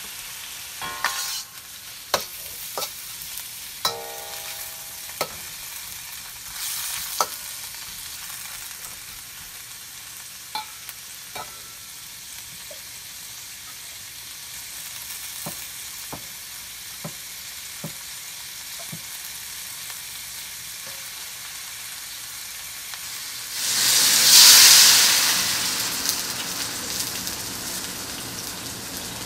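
Food frying in a hot pan: a steady sizzle with scattered clicks and taps of a utensil against the pan. About 24 seconds in, a loud surge of sizzling rises and then slowly fades.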